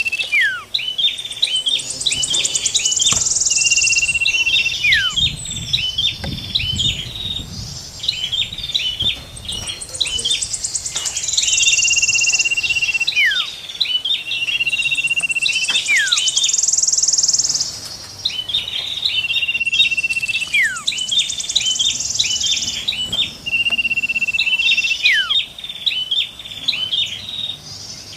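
Looped lure-call recording of songbirds, common iora, prenjak and wood warbler, singing together: rapid sharp chips, long steady whistles that end in a falling slur, and high buzzy trills, the same phrases coming round again and again.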